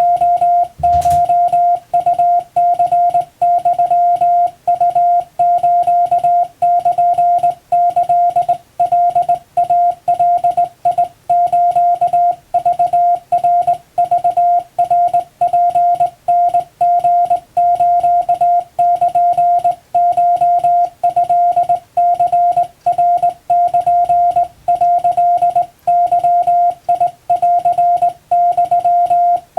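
Japanese Wabun Morse code sent on a hand key: a steady mid-pitched beep keyed on and off in a continuous run of dots and dashes, with short gaps between characters. A brief soft knock is heard about a second in.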